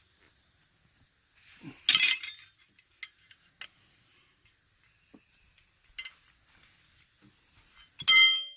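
Steel tools and fittings clanking during hydraulic fitting work: two loud, ringing metal clanks, one about two seconds in and one near the end, with a few light clicks between them.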